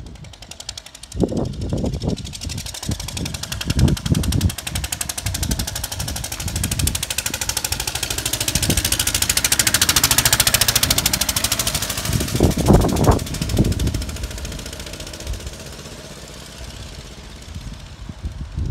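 Lister-engined motorbike riding past, its engine firing in a fast, even beat that grows louder as it approaches, peaks about halfway through, and fades as it moves away. Several low thumps come in the first few seconds and again just after it passes.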